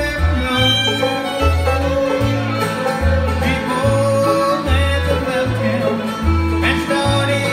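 Live bluegrass band playing an instrumental break, no singing: the fiddle is bowed at the front over strummed acoustic guitar, with the bass walking a steady two-beat line underneath.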